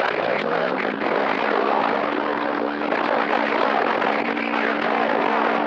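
CB radio receiving skip on channel 6 (27.025 MHz): loud hiss and crackle of static with no clear voice, plus a few steady low tones that slide up into pitch in the first second and then hold.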